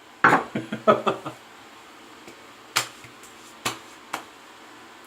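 Small hard objects, such as bottles and containers, clicking and knocking as they are handled and set down: a quick cluster of knocks, then three single sharp clicks spaced about a second apart.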